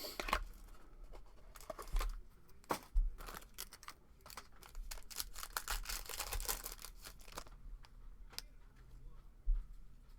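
Plastic wrapping on a sports-card box being torn and crinkled open, with irregular sharp snaps and a denser run of crackling in the middle.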